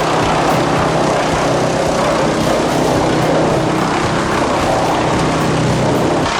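Heavy wood chipper or crusher running under load: a steady, loud engine drone under the noise of logs being chewed up.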